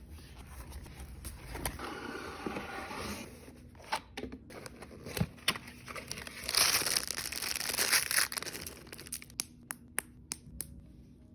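Toy packaging being opened by hand: crinkling and tearing in bursts, with scattered sharp clicks and knocks, more of them near the end.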